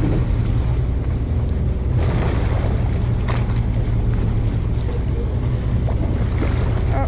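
Party fishing boat's engine running with a steady low drone, under wind rushing on the microphone and the wash of choppy sea water.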